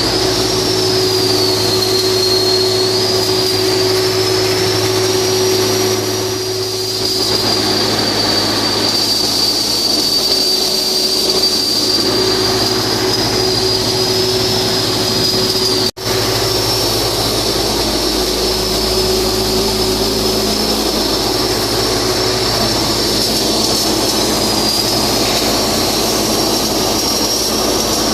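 Flux-cored arc welding: a steady, loud arc hiss over a low machinery hum, with a faint high whine that wavers in pitch. The sound drops out for an instant about sixteen seconds in, then carries on.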